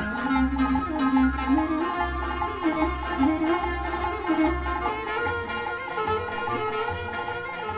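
Television programme theme music: a melody on bowed strings over a pulsing bass.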